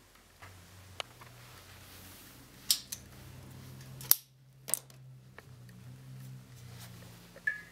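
Handling noise of a motorcycle glove being dipped into a glass cylinder of water: several sharp clicks and knocks, the loudest about four seconds in, over a low steady hum.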